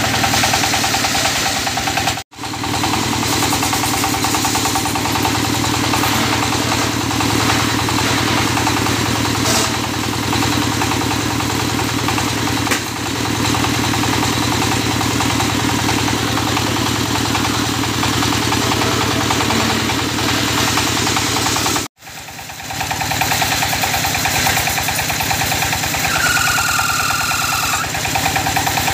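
Single-cylinder diesel engine powering a belt-driven circular-saw sawmill, running steadily with a fast even pulse. The sound cuts out abruptly twice, briefly each time.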